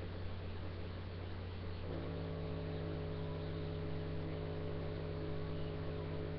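Steady electrical hum. About two seconds in, a second set of higher, even humming tones joins it and holds steady.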